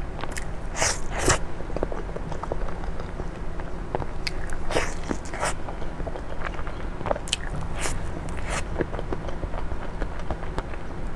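Close-miked eating sounds: soft wet bites and chewing of chocolate cream cake, with short sharp mouth noises a few times.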